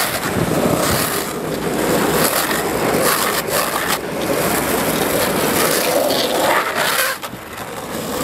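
Longboard wheels rolling and scraping on asphalt at speed, with wind rushing over the microphone. The noise drops off a little after seven seconds in.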